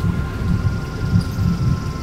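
Background music: sustained high tones over a low, unevenly pulsing bass.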